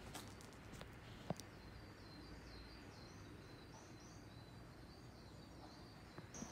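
Near silence: quiet outdoor ambience with faint small birds chirping in a run of short high notes through the second half, and a single soft click about a second in.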